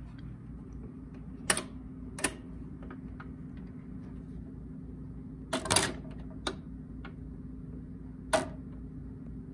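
Garrard 1025T auto changer cycling: a low steady hum of the running turntable under a series of sharp mechanical clicks and clacks from the change mechanism, the loudest clatter about halfway through as a record drops from the stacked spindle onto the platter.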